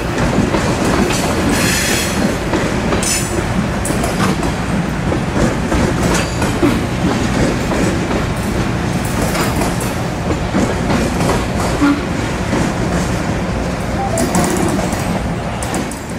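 Freight train of refrigerated boxcars rolling past at a grade crossing: steady wheel rumble and clickety-clack over the rail joints, with brief high wheel squeals now and then. The sound starts to fade as the last car clears, right at the end.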